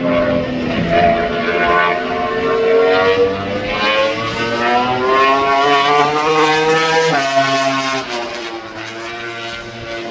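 MotoGP racing motorcycle engine at high revs, its pitch climbing steadily for several seconds, dropping suddenly about seven seconds in, then climbing again.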